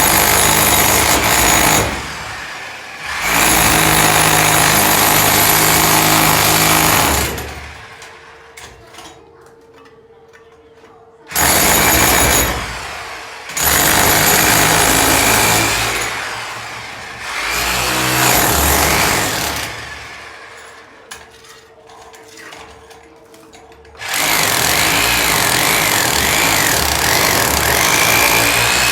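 A power tool running in loud bursts of a few seconds, with a high whine that wavers as the motor speed changes. It stops and starts about five times, with a steady low hum in the pauses.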